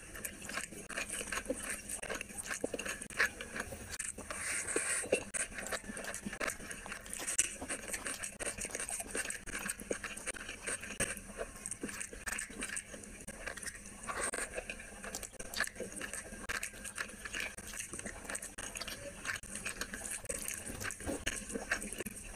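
Close-miked sounds of rice and curry being mixed by hand on a plate: wet squishing with many small clicks and crackles throughout.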